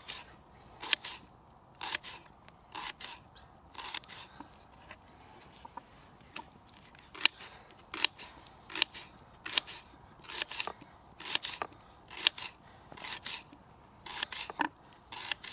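Small Opinel folding knife slicing through a raw onion on a wooden board: crisp crunching cuts, about one a second, each ending in a light knock of the blade on the wood.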